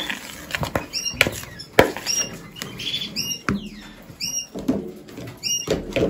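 Couscous soft food being stirred in a bowl, with a scratchy rustle and sharp clicks of the spoon against the bowl, while canaries chirp briefly and repeatedly in the background.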